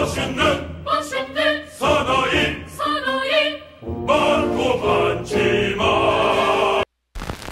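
Music with choral singing in an operatic style, breaking off suddenly a little before the end.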